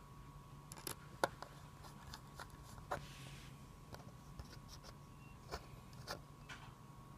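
Scattered light clicks and taps of small computer hardware being handled, such as a drive, screws and case parts, over a faint steady hum. The sharpest click comes about a second in.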